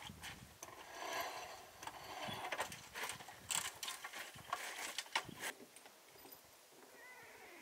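Irregular metal clanks and clicks of a folding ladder being pulled down and set up, with footsteps on loose river pebbles.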